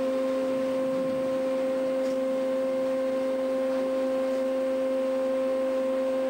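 A steady pitched hum: one low tone with its overtones, unchanging throughout.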